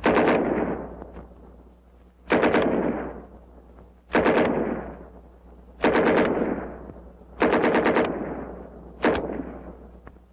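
World War II submachine guns being test-fired, the German 9 mm MP40 "Schmeisser", the .45 Thompson and the .45 M3, in six short automatic bursts about every one and a half to two seconds, each dying away in an echo.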